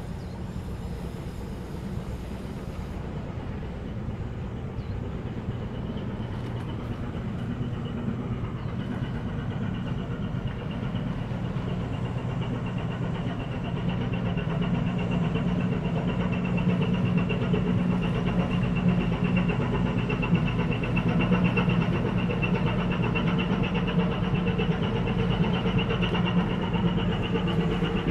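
Low, steady drone of the general cargo ship STC Athena's engine, with a thin high whine above it, growing louder as the ship moves past close by.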